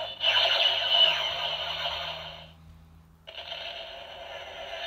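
Electronic sound effect played through the Iron Giant toy figure's small built-in speaker, thin and tinny. It dies away to almost nothing about two and a half seconds in, then comes back more quietly.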